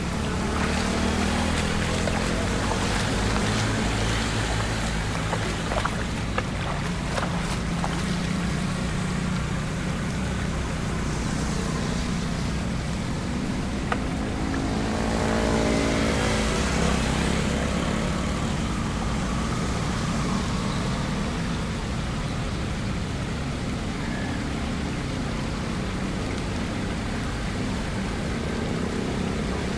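Motor vehicles driving through a flooded road, with engines running under a steady wash of water; one vehicle passes close by around the middle, swelling and then fading.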